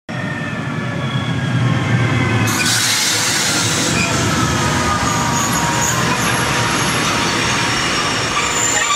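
Appenzeller Bahnen passenger train rolling past close by, a steady rush of wheel and carriage noise with faint thin squealing tones that slide down in pitch.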